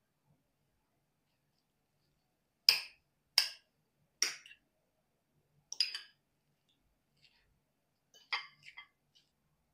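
Metal spoon clinking against a clear glass bowl while mashing steamed yam and potato: a handful of short, sharp clinks, the first about three seconds in, the last ones close together near the end.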